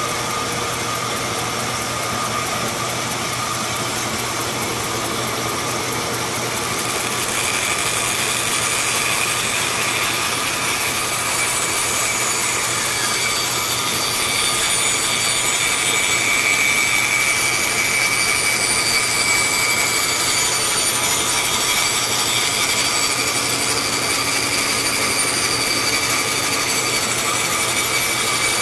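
Vertical bandsaw running and sawing a block of wood: a steady hum and whir of the motor and blade with the cutting noise on top, getting a little louder about seven seconds in.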